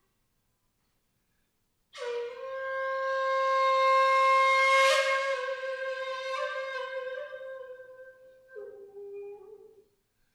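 Shakuhachi playing Zen honkyoku. After about two seconds of silence, one long breathy note swells to its loudest midway and fades, then a shorter, lower note follows near the end.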